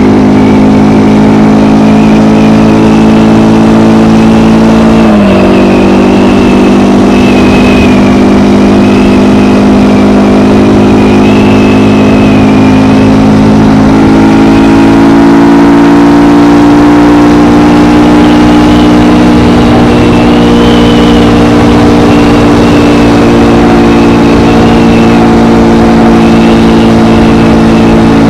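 KTM Gen 3 Duke's single-cylinder engine through its stock exhaust, running at fairly steady revs under way. The pitch dips briefly about five seconds in, steps up about fourteen seconds in, then holds.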